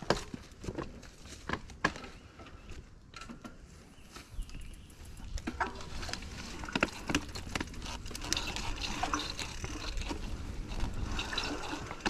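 Mountain bike rolling over a dirt trail: scattered knocks and clatter, with a steadier low rumble from about halfway.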